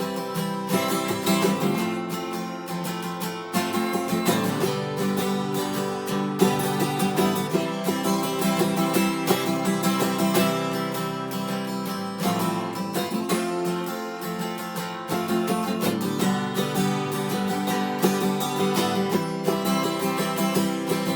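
Acoustic guitar strummed in a steady country rhythm: an instrumental break in a song, with no singing.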